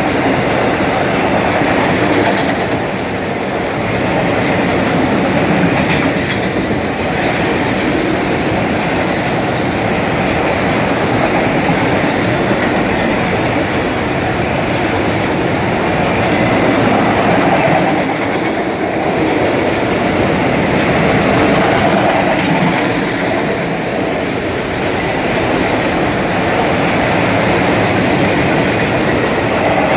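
Freight train of autorack cars rolling past close by: steel wheels running on the rails in a steady, continuous noise that swells and eases slightly.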